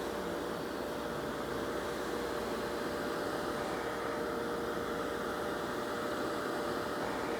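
Bissell vacuum cleaner running steadily: an even motor hum with a constant rush of air.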